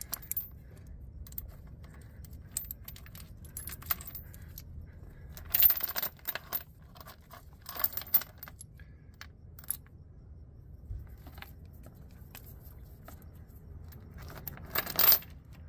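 Steel engine-hoist chain clinking and rattling in short bursts as the links are handled and shifted against the engine. The bursts are loudest about six, eight and fifteen seconds in, with fainter clicks between.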